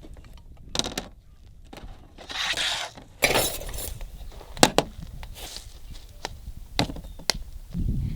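A handful of sharp cracks and knocks, spaced irregularly, with a couple of short rustling noises in between, about two and three seconds in.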